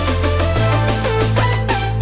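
Electronic background music with a steady beat and a sustained bass line that shifts to a new note about half a second in.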